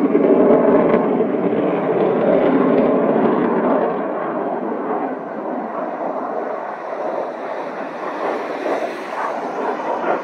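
Military jet's engine noise passing overhead: a loud, rushing noise that is strongest in the first four seconds and then eases off somewhat.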